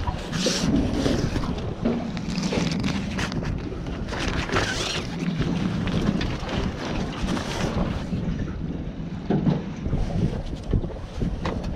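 Wind buffeting the microphone on an open boat at sea, with the rustle of a jacket sleeve being pulled and adjusted.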